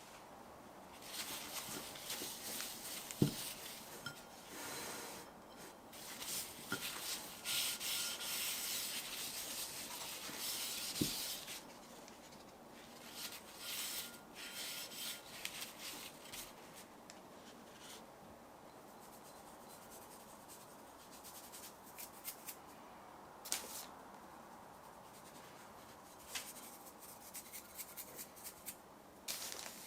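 Soft rubbing and scraping from handling pie ingredients and utensils, coming in spells during the first twelve seconds, with a sharp knock about three seconds in. After that it is quieter, with only occasional light taps.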